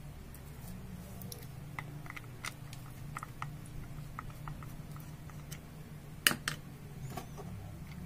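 Plastic faucet parts being handled during a repair: scattered light clicks and taps, with a sharper double knock about six seconds in.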